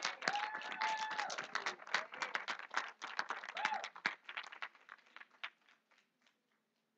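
Audience applauding, with a few voices calling out over the clapping; the applause thins out and stops about six seconds in.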